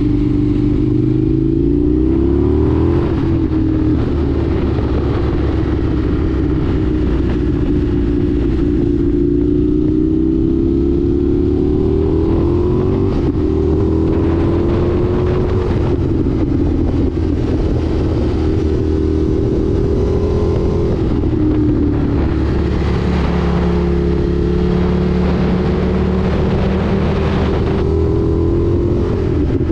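Indian FTR 1200 S motorcycle's V-twin engine under way, its pitch rising and falling every few seconds as the throttle is rolled on and eased off.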